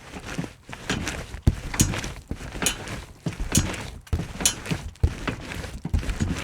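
Repeated trampoline bounces, about one a second. Each bounce is a low thump followed by a sharper, higher-pitched sound.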